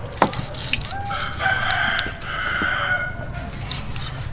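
A rooster crowing once, one long call of about two seconds starting about a second in. It comes just after a single knock of a cleaver chopping pork on a wooden board.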